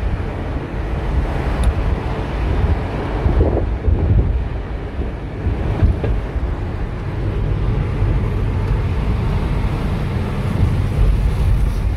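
Wind buffeting the microphone, a steady low rumble, over the noise of a moving vehicle.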